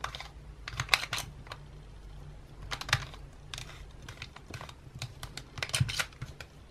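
Plastic pieces of a Fanxin Nautilus twisty puzzle clicking and clacking as its layers are twisted by hand through half turns. The clicks come in quick clusters, about a second in, near three seconds, and again between five and six seconds.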